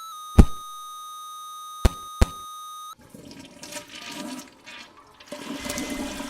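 A steady electronic tone of several pitches held together, broken by sharp thumps about half a second in and twice near the two-second mark; about three seconds in it cuts off suddenly and a rushing, water-like noise takes over.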